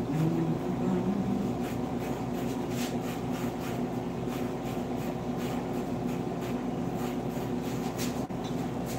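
Barber's scissors snipping hair in short, irregular clicks over a steady electric hum.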